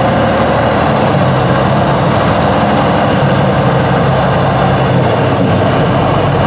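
Tatra 815 8x8 truck's diesel engine running loud and steady under load as the truck crawls through deep mud.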